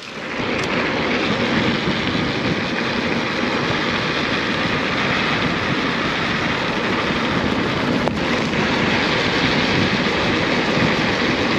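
Wind rushing over the camera microphone and tyres rolling on a forest track as a mountain bike is ridden along, a loud, steady rushing noise that sets in abruptly; a single sharp click about eight seconds in.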